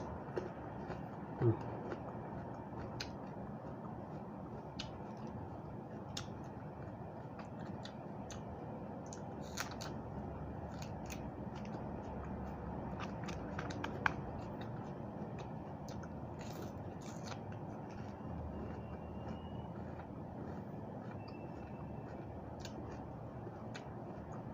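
Chewing and crunching of raw fresh vegetables, with scattered short crunches and mouth clicks over a steady low background hum.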